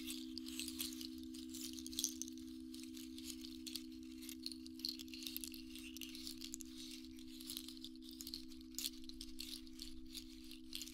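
Sound-healing instruments playing: a steady low drone of two held notes under a continuous high, crackling, jingling rattle.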